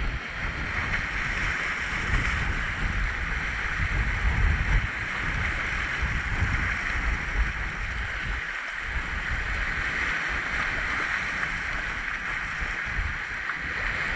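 Sea waves washing against a rocky shore, a steady hiss of surf, with wind rumbling irregularly on the microphone.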